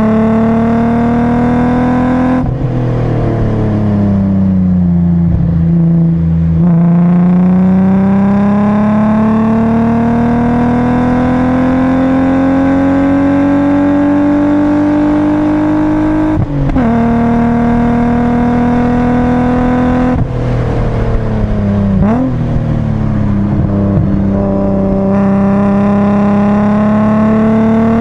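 BMW 328i's straight-six engine heard from inside the cabin while lapping a race track. Its pitch sinks slowly as the car slows, then climbs steadily under hard acceleration for about ten seconds and drops suddenly at a gear change, followed by a second dip and brief blip before it pulls up again near the end.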